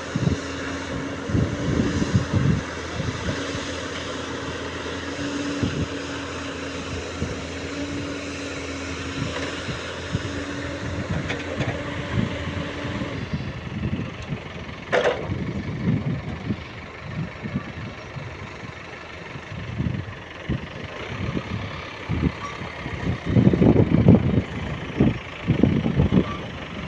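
Heavy machinery's diesel engine running steadily with an even hum. About halfway through the sound changes. Irregular loud knocks come near the end.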